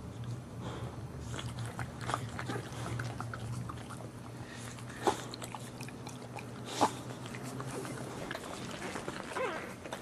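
Boxer dog licking and chewing wetly at a newborn puppy and its birth sac, a run of small smacking clicks, with two short sharp sounds about five and seven seconds in.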